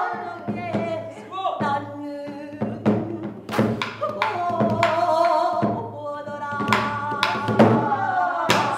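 Pansori singing: a woman's voice in long held notes that slide in pitch, with a buk barrel drum struck with a stick at irregular intervals.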